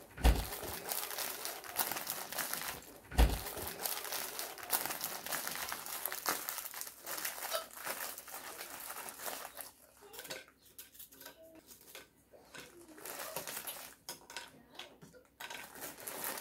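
Plastic wrapper of a packet of biscotes crinkling as it is handled, opened and toasts are pulled out, with two dull thumps, one right at the start and another about three seconds in.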